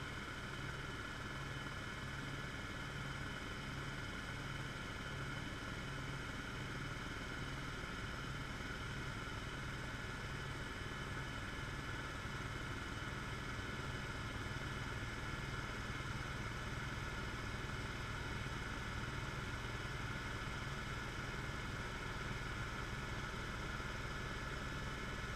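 Helicopter in flight heard from inside the cabin: the steady drone of the rotor and engine, with a steady high whine over a low pulsing throb.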